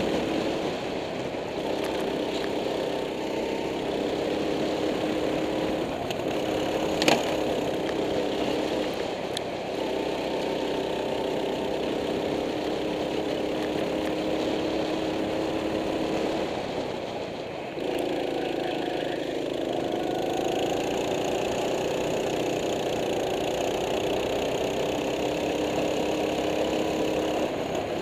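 Go-kart engine running on track, heard from on board, its pitch falling and rising as the kart slows for corners and accelerates out of them. A sharp knock about seven seconds in; near the end of the first two-thirds the engine drops off, then climbs again.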